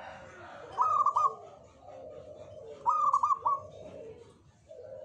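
Zebra dove (perkutut) cooing: two quick staccato phrases of three or four short notes each, about two seconds apart, over softer, lower cooing.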